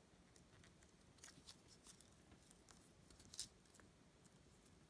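Near silence with faint rustles and soft crinkles of origami paper being folded and pressed into place by hand, with one slightly louder crinkle about three and a half seconds in.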